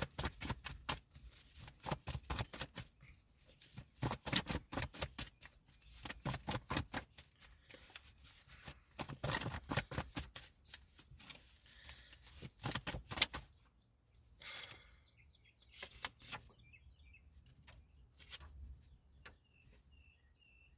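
Rapid runs of clicks and slaps, typical of a deck of cards being shuffled, for about the first thirteen seconds; after that, a few scattered clicks. Faint bird chirps come in near the end.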